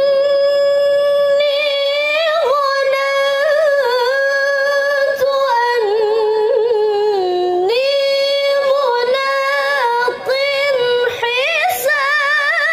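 A young female Quran reciter (qari'ah) chanting in the melodic tilawah style into a handheld microphone. She sings one long unbroken phrase of held notes with quavering ornaments, dipping lower in the middle and climbing back up after it.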